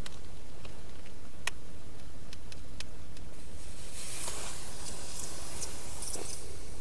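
A few sharp clicks, then from about four seconds in a scratchy rustle, as gloved hands work a small fire starter into a wet twig tinder bundle to try to light it. A steady low hiss underneath.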